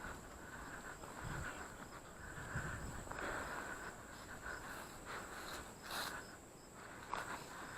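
Insects chirring in a steady, high, even drone, with faint scattered noises beneath.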